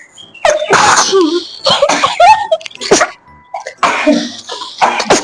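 A run of about five loud sneezes in quick succession, some with a short vocal cry, set off by sniffing a sneezing powder.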